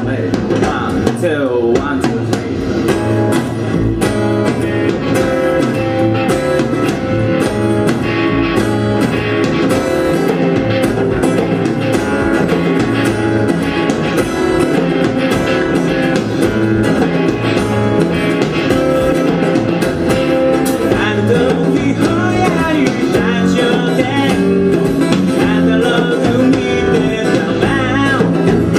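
Rock band playing live: acoustic guitar, electric guitar, bass and drum kit, with a man singing.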